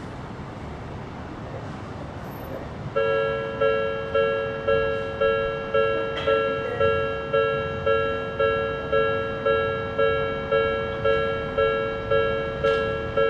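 Japanese level-crossing alarm with the Odakyu-style electronic bell tone, starting about three seconds in and ringing a steady two-tone ding a little under twice a second: the crossing is warning of an approaching train.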